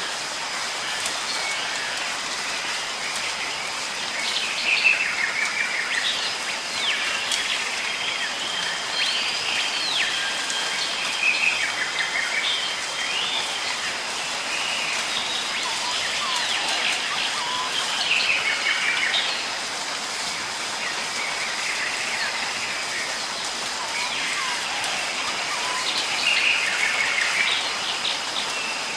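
Steady rain falling, with birds chirping and calling over it in bouts every few seconds.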